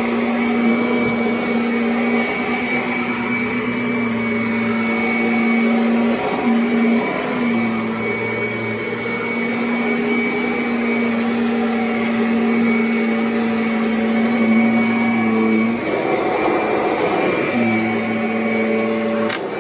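Kirby Avalir 2 upright vacuum cleaner running with a steady motor whine. The tone drops out briefly a couple of times and for about a second and a half near the end, giving way to a rougher rushing sound before it settles back. A sharp click comes just before the end.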